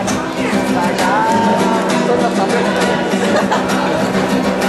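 Acoustic guitar playing steadily, with chords ringing on.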